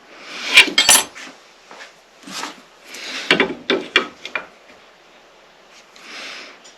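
Wood and hand tools handled on a workbench: sharp knocks and clatters with scraping, in a burst about half a second in and another from about three to four and a half seconds, then a softer rub near the end.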